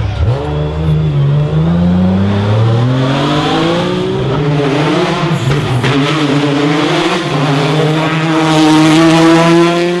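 Rally car engines revving hard at full throttle as the cars pass, the pitch climbing and then dropping with each gear change. One long climb comes near the end.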